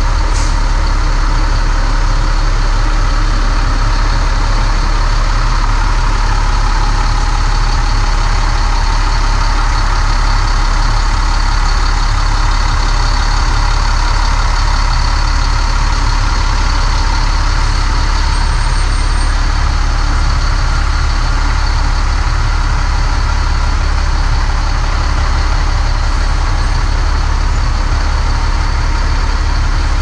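Loud, steady engine and machinery noise in the cargo hold of a C-17 Globemaster III as a heavy military truck drives out down the rear ramp.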